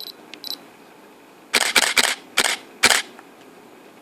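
A DSLR fires a burst of about five loud shutter-and-mirror clicks in quick succession, fitted with a Canon 70-200mm L IS USM lens. Before the burst come a few faint short sounds as focus is taken and the lens's image stabilizer engages.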